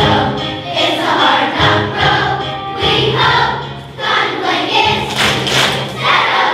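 A chorus of children singing together over instrumental accompaniment in a stage musical number.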